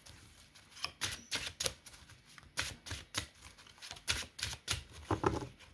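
Tarot cards being shuffled and handled on a table: a string of irregular sharp taps and clicks.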